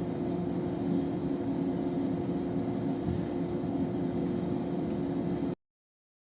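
Steady mechanical rumble with a low hum, like a running vehicle, which cuts off suddenly about five and a half seconds in.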